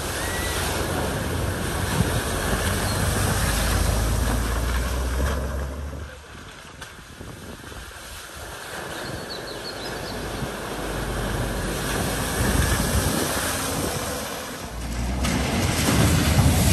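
Cars driving through a flooded ford, their tyres throwing up spray: a loud rush of splashing water and engine for about the first six seconds, quieter for a few seconds, then another car ploughing through close by near the end, louder.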